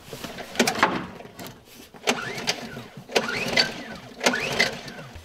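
Honda EU2000i generator being pull-started: four yanks on the recoil starter about a second apart, each a short rising whir as the engine turns over, without the engine catching and running.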